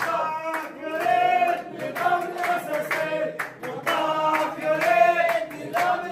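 A crowd of protesters chanting slogans in unison in repeated phrases, led by a man's voice through a megaphone, with clapping.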